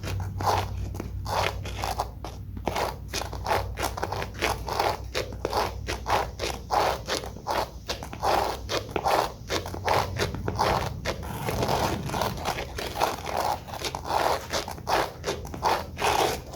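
Shoes walking on a hardwood floor: a steady run of footsteps, two to three steps a second.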